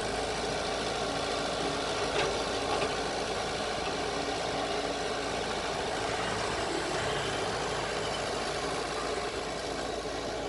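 Komatsu PC78US-6 excavator's diesel engine running steadily while it works, loading soil into a dump truck, with two brief knocks a little after two seconds in.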